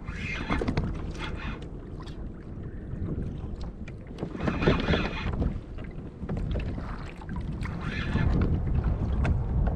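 Wind buffeting the microphone over the sea, with small waves splashing against the fishing kayak's hull in three washes, the loudest around the middle.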